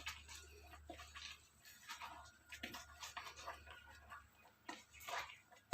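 Faint, irregular rustling and squelching of leaves being squeezed and kneaded by hand in water, with a low hum under the first few seconds.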